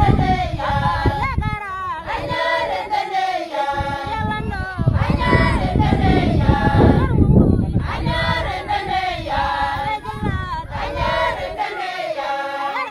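A group of women singing a traditional song together, unaccompanied, in short repeated phrases.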